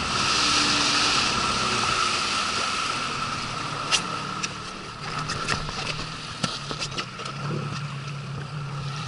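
A PVC inflatable boat coasting with its 9.9 hp outboard throttled back: water rushes along the hull, loudest at first and then fading, with a few sharp knocks. Near the end the outboard settles into a low, steady idle.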